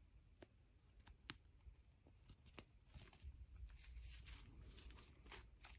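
Faint crinkling and light clicks of small plastic zip-lock parts bags being handled, scattered irregular ticks with a soft rustle in the second half.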